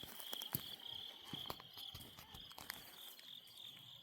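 Night insects, likely crickets, chirring in a steady pulsing chorus, with faint scattered clicks and taps of handling close by.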